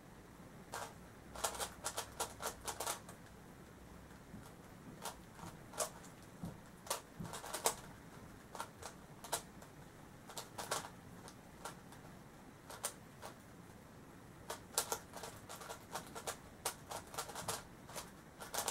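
Plastic clicks and clacks of a stickerless megaminx puzzle being turned by hand: quick flurries of face turns with short pauses between them.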